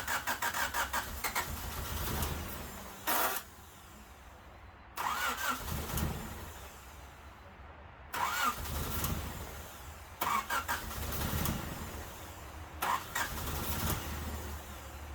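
Honda Civic engine cranking on the starter in several bursts with short pauses between, turning over fast and rhythmically but never catching: a crank-no-start, which the owner suspects is down to ignition timing.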